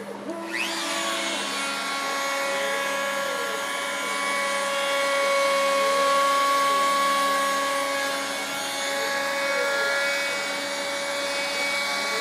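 Small variable-speed laminate router on a homemade CNC machine switching on, spinning up about half a second in, then running with a steady high whine as it cuts into a pine board. The stepper motors turning the lead screws add a softer whine that rises and falls in pitch every few seconds as the axes move.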